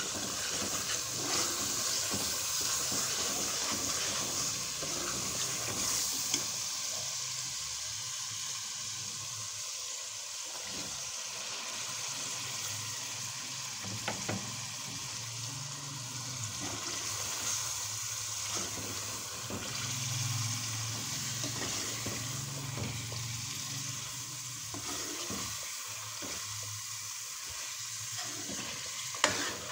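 Chicken pieces and spiced masala frying in oil in a metal pan, with a steady sizzle as a steel spoon stirs and scrapes them. Now and then the spoon clinks sharply against the pan, loudest near the end.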